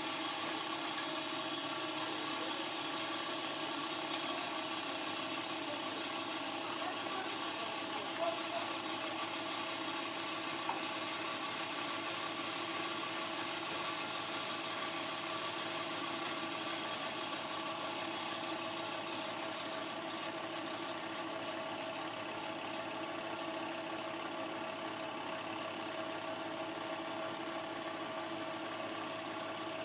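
Home-movie film projector running: a steady mechanical whirr with a constant hum that does not change.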